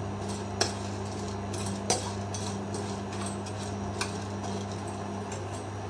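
A spoon stirring and scraping whole spices, cloves among them, as they dry-roast in a pan, with scattered light taps and clinks of metal on the pan. A steady low hum runs underneath.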